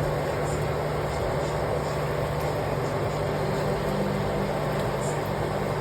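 Chicken frying down in its curry masala in a pot, a steady sizzling hiss over a constant low hum.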